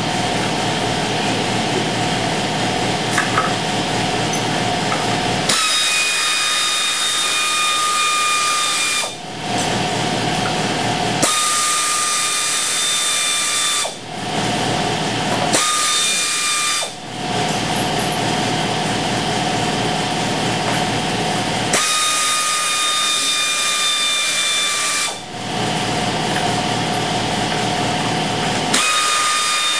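1950 Nash compressor running. A rhythmic low pulse with a steady hum alternates every few seconds with a strong hiss carrying a whistle that falls slightly in pitch.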